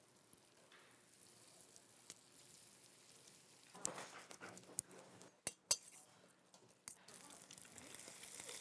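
Food sizzling faintly in hot oil in frying pans, with a few sharp clinks of metal utensils against pans and bowls in the middle of the stretch. The sizzle grows louder near the end.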